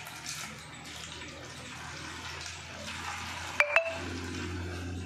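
Water pouring from a steel flask into a plastic bottle, a steady splashing trickle. Two sharp clicks come close together a little past halfway and are the loudest sounds.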